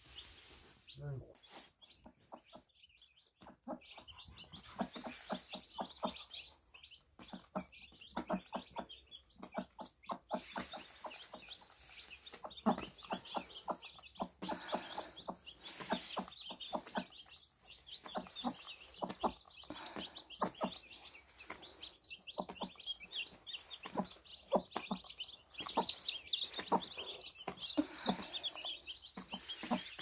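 Newly hatched Cheonggye chicks peeping constantly in a crowded brood, with the mother hen clucking among them.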